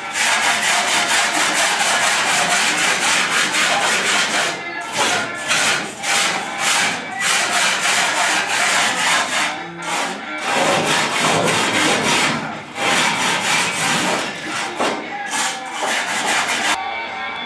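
A hand-held tool scraping and abrading the corrugated steel floor of a pickup bed: a loud, rough scraping noise that breaks off briefly several times and stops near the end.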